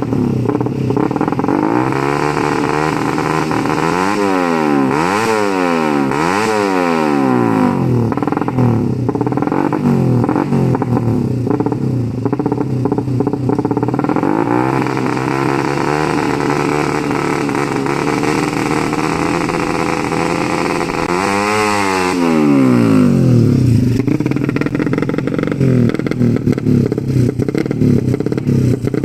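Head-ported Suzuki Satria FU 150 single-cylinder engine held at a fast idle and blipped: three quick revs up and down about four to seven seconds in, a slower swell in the middle, and one bigger rev a little past twenty seconds.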